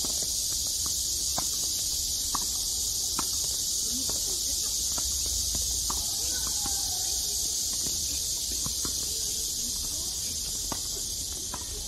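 A steady, high-pitched drone of summer insects over a tennis rally. Through it come about a dozen short, sharp pops of racquets hitting the ball, with footsteps on the hard court in between.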